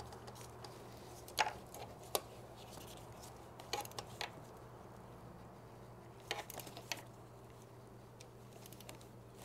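Faint, scattered metallic clicks and clinks of a socket wrench on universal-joint extensions being worked onto bolts, a few separate clinks several seconds apart, over a steady low hum.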